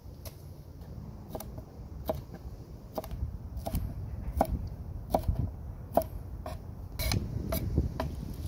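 A knife chopping food, about a dozen sharp strokes at one or two a second, each with a brief ring.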